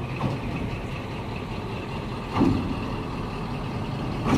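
ČME3 diesel shunting locomotive idling with a steady low hum while the turntable carries it round. Two short louder knocks stand out, about two seconds apart, the second near the end.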